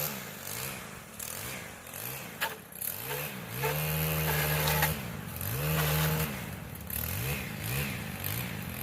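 Chainsaw engine revving up and dropping back over and over, held at high revs twice for about a second around the middle.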